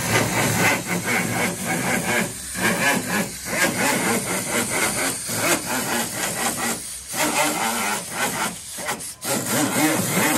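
Small handheld power sander with an abrasive disc scrubbing old coating off the bare sheet-steel underside of a car trunk lid. It runs in a steady harsh rasp that eases off briefly several times as the disc is lifted and moved.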